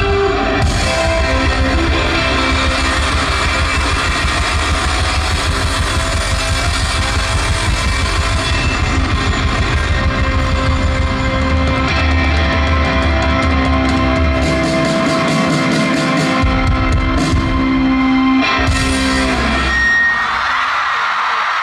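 A live rock band plays loud, with electric guitars, bass and a drum kit and no vocals. About twenty seconds in, the bass and drums drop out and audience cheering takes over as the song ends.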